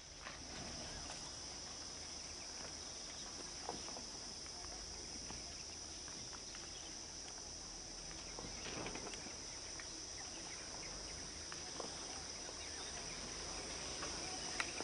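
Insects droning steadily at one high pitch in the surrounding forest, with a few faint scattered clicks.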